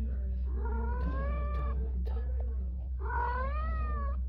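Cat meowing twice: two long drawn-out meows, each rising and then falling in pitch, about two seconds apart, over a steady low hum.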